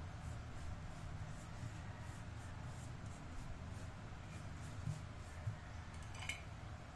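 Metal spoon scraping and spreading cinnamon-sugar filling over rolled-out dough in light, repeated strokes, over a low steady hum. About six seconds in, the spoon clinks once against a ceramic dish.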